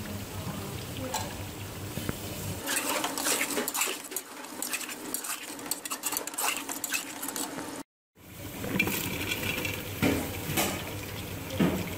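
Metal slotted spoon scraping and clinking against an aluminium cooking pot while stirring chicken in spiced oil, in quick irregular clicks. After a brief cut at about eight seconds, more clinking and scraping as apple gourd pieces go into the pot and are stirred.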